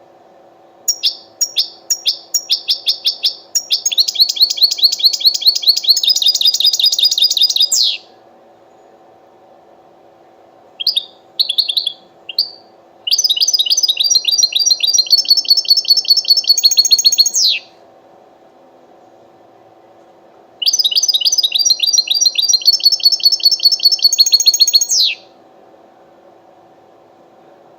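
European goldfinch singing: three long phrases of fast, repeated high notes, each running several seconds, with a few short separate notes between the first two phrases. A faint steady hum lies underneath.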